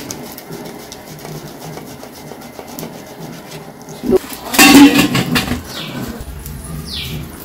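Boiled potato being grated on a steel hand grater over a steel plate: a soft, steady rasping, stroke after stroke. About four seconds in, a brief, much louder burst of sound rises over it.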